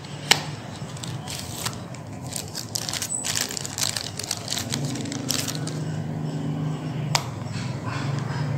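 Unboxing handling noise: a small cardboard box being opened and a plastic case in a clear plastic bag pulled out, the bag crinkling in a run of crackles about a second in, with single clicks of handling later. A low steady hum sits underneath, stronger in the second half.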